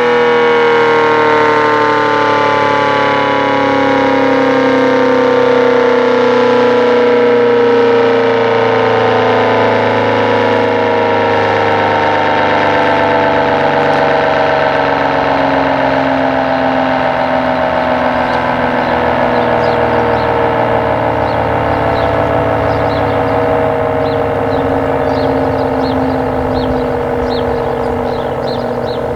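Coded ACA P-15 outdoor warning siren winding down, its chord of tones falling slowly and steadily in pitch as it gradually gets quieter.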